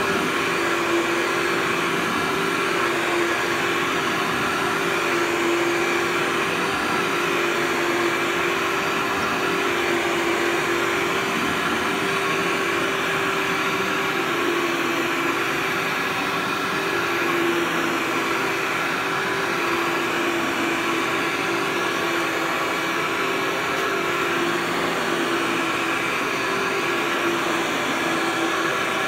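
Upright vacuum cleaner with a clear dust canister, running steadily while pushed back and forth over carpet. Its motor hum wavers slightly in pitch every few seconds.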